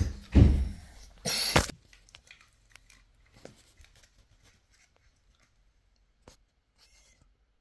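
Trading cards and their packaging being handled close to the microphone: a heavy bump right at the start, then a short papery rustle about a second and a half in, then a few faint clicks of cards being moved.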